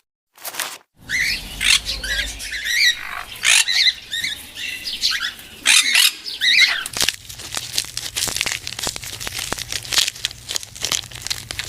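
A bird chirping and squawking in short, gliding calls for several seconds, then a run of clicks and rustling near the end.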